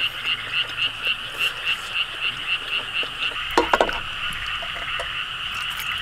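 A frog chorus calling in a fast, even pulse, about seven calls a second. A few quick clinks about halfway through as a ladle knocks against a stainless-steel tray.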